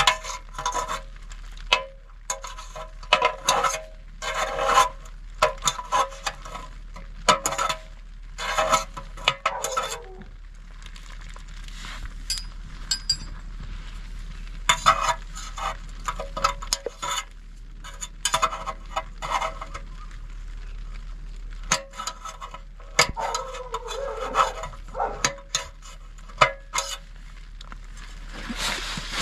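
A thin metal pick scraping and tapping inside the brass valve of a small LPG gas cylinder, working loose a washer stuck in it: repeated short metallic scrapes and clinks with a brief ring, coming in bursts with short pauses.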